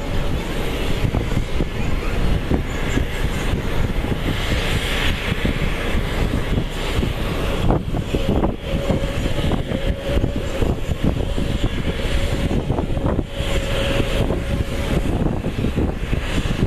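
Jet engines of an Airbus A320-family twin-jet airliner at take-off thrust through the take-off roll and lift-off: a loud, steady rumble with a faint steady whine in the middle. Wind buffets the microphone.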